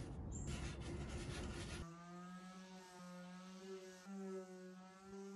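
Scratchy rubbing of a hand working sawdust into a wooden tabletop. About two seconds in it gives way abruptly to a corded electric detail sander running with a steady hum, its pitch wavering slightly as it is pressed over the tabletop with 80-grit paper.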